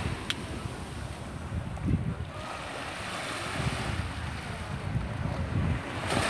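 Wind buffeting the microphone with a low rumble, over small waves lapping on a sandy shore; a wave washes up onto the sand near the end.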